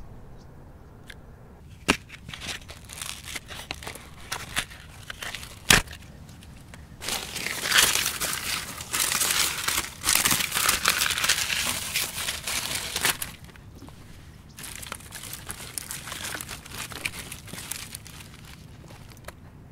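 Dry sticks, bark and brush being handled: crinkling and crunching, densest for several seconds in the middle, with two sharp snaps early on.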